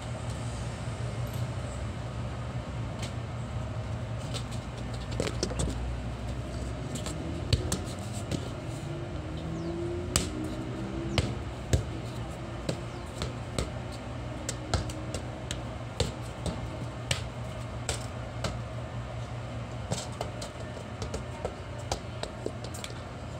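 A football being kicked and bouncing on hard ground: irregular sharp taps and thuds, one or two a second, with one heavier thud, over a steady low background hum.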